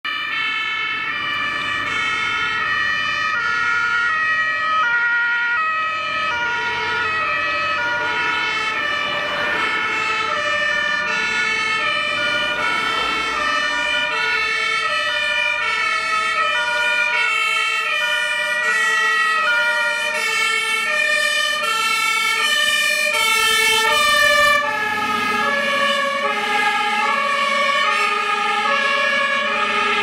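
Two-tone sirens (Martinshorn) of German fire brigade vehicles, each switching back and forth between a high and a low note, with two horns sounding together out of step. The pattern changes at about 25 seconds as a different vehicle's horn comes to the fore.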